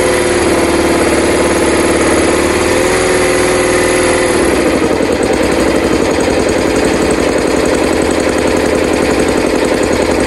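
Petrol engine of a Shark EZ 1035 engine-driven air compressor running just after starting. Its speed dips and recovers in the first few seconds, and from about four and a half seconds in the running turns rougher and less even.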